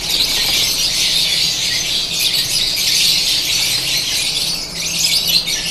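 Many peach-faced lovebirds chattering at once, a dense, steady, high-pitched din.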